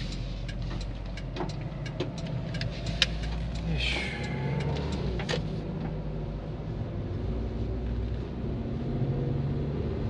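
Van engine running and road noise heard from inside the cab while driving, with scattered small clicks and rattles and a brief falling squeal about four seconds in.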